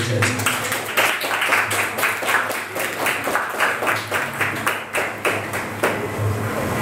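A small audience applauding, with individual claps clearly heard, dying away near the end.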